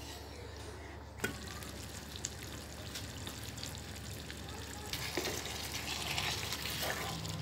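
Chicken karahi frying in oil and yogurt in a kadai: a soft sizzle that grows louder and denser about five seconds in as the yogurt's water cooks off, with a few light ticks from a wooden spatula stirring. A single sharp click comes about a second in.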